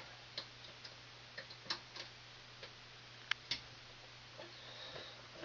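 Scattered small clicks and taps of wires being handled and pushed into push-in wire connectors, a few irregular snaps over several seconds, over a faint steady electrical hum.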